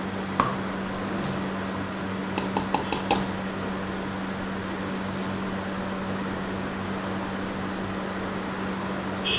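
Steady mechanical hum with a constant low tone. There is a single sharp tick just after the start and a quick run of four or five sharp ticks about two and a half seconds in.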